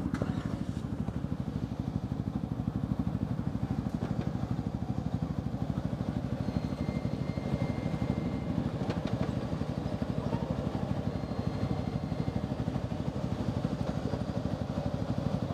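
Engine idling steadily close by, a fast even low pulse that holds unchanged.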